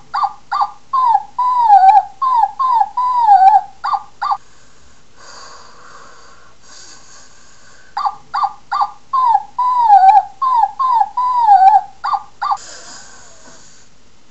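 A dog yipping and whimpering: a quick run of short high yips, about three a second, with a few drawn-out falling whines among them. The same run comes twice, with a soft hiss in the gap between.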